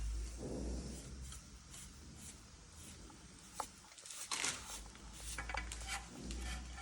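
Faint rustling and rubbing with a few light clicks as an electrical cable is worked by hand into the lamp.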